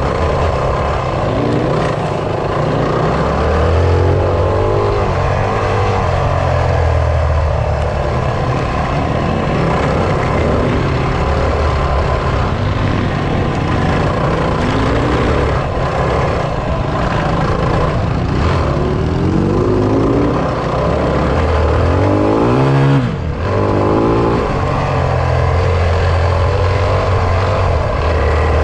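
Single-cylinder enduro motorcycle engine running under way, the revs rising and falling again and again as the rider works the throttle through the gears, with a short drop in revs about 23 seconds in.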